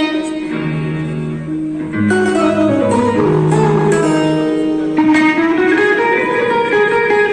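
Instrumental music without singing: held notes over a moving bass line, the harmony changing every second or two.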